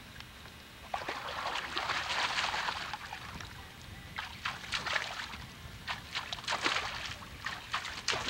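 Water splashing and sloshing in a small plastic wading pool as a child scoops and moves about in it: a dense wash of splashing at first, then a run of quick, separate sharp splashes in the second half.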